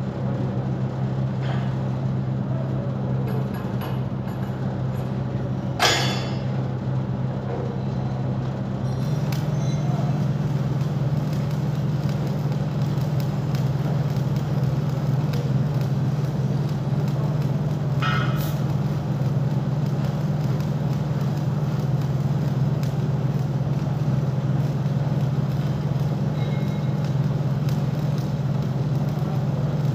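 Steady low hum of workshop machinery with a general clatter, its pitch shifting slightly about nine seconds in, broken by a sharp metal clank about six seconds in and another near the middle.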